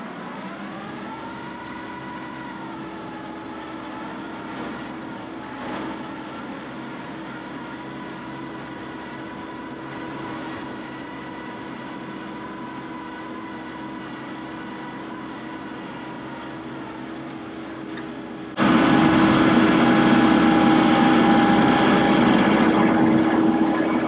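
A vehicle engine running steadily, with a slight wavering in pitch in the first few seconds. About eighteen and a half seconds in, a much louder engine sound cuts in abruptly and holds, easing off slightly near the end.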